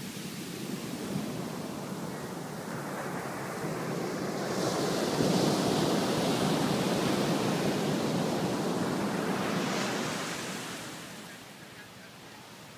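Ocean surf: a wave breaks and its foam rushes up the sand, the wash swelling about four seconds in and fading away near the end.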